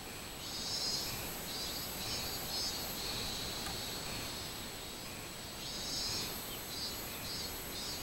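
Minmin cicadas (Hyalessa maculaticollis) singing: a high, shrill buzz that swells in longer stretches and breaks into runs of short, evenly spaced pulses.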